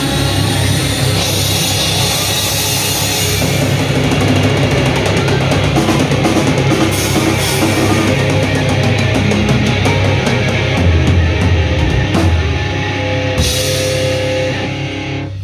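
Live rock band playing loud: distorted electric guitars over a drum kit with cymbals, the drumming dense in the middle, and the music falling away right at the end.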